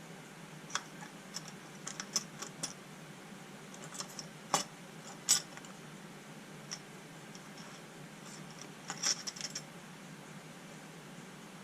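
Scattered small clicks and light metallic clinks of small parts and tools being handled, irregularly spaced, with the sharpest ones a little past the middle and a quick cluster near the end, over a faint steady hum.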